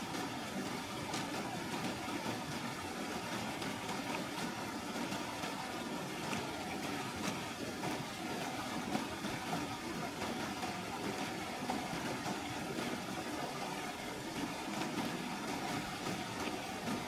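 River water rushing steadily over rocks, with a few faint clicks.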